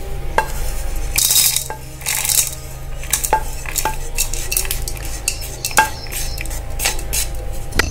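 A spatula scrapes a dry roasted mix of dal, spices and grated coconut out of a non-stick pan into a plastic mixer-grinder jar. It makes irregular sharp taps and clicks, with two short scraping rushes in the first few seconds.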